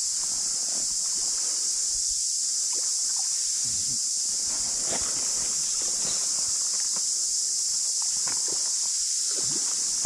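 Dense chorus of cicadas, a loud, unbroken high-pitched drone, with faint scattered rustles and clicks close by.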